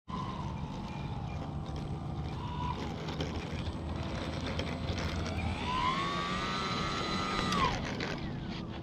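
Radio-controlled model airplane's motor and propeller whining. A fainter whine wavers and falls at first. Then the pitch rises for about a second, holds for about two seconds, and cuts off suddenly near the end, over a steady low rumble.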